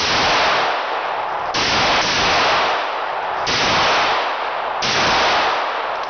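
Handgun shots in an indoor shooting range: four loud reports, one to two seconds apart, each ringing out and fading off the range's hard walls.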